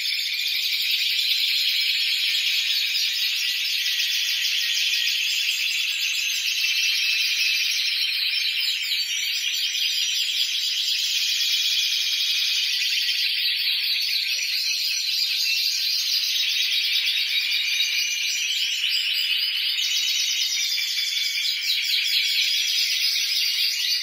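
A group of caged Spanish Timbrado canaries singing all at once in a continuous, dense chorus of high, rapid trills, very metallic in tone.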